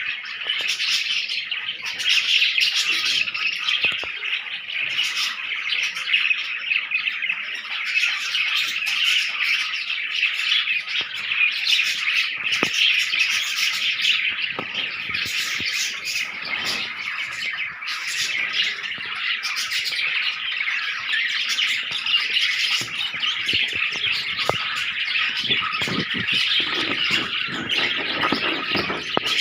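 A flock of budgerigars chattering and chirping continuously in an aviary: many overlapping warbles, chirps and squawks at once.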